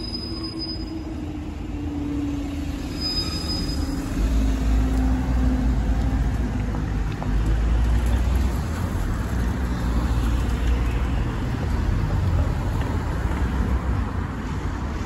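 Railway level crossing barriers rising, with a low hum that slowly falls in pitch over the first few seconds. From about four seconds in, cars drive across the crossing with a loud low rumble of engines and tyres.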